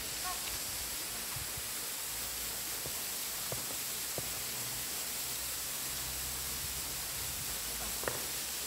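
Steady rushing of flowing water from the stream and falls, an even hiss with no break.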